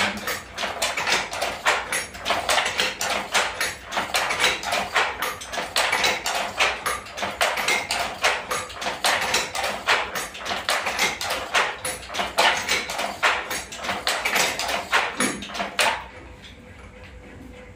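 Wooden handloom clacking rhythmically as the weaver pulls the shuttle cord and beats the reed against the cloth. The knocks of wood on wood and the shuttle's clatter come fast and unevenly, then stop suddenly about two seconds before the end, leaving only a low hiss.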